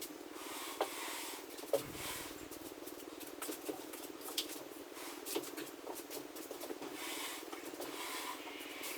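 Irregular rubbing and scraping with scattered light knocks and clicks, two sharper knocks within the first two seconds, as a large buffet cabinet is shifted across the floor.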